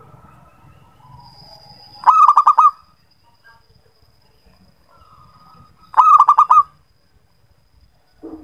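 Zebra dove (perkutut) cooing: two loud bursts of its fast staccato song, each a run of about five quick notes, about two seconds in and again about six seconds in. Softer dove calls and a faint steady high tone sound between them.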